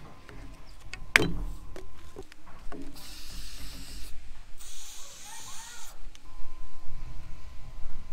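An aerosol spray can hissing in two short bursts of about a second each, sprayed onto a hose fitting. Around it are clicks and knocks of hose and fittings being handled, the loudest a sharp knock about a second in.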